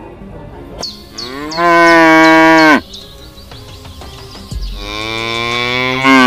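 Cow mooing twice: two long, drawn-out moos. The first holds steady and drops in pitch at the end; the second starts softer and grows louder.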